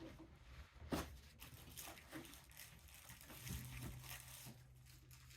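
Quiet room with faint handling noises and a sharp knock about a second in. A low steady hum starts about three and a half seconds in.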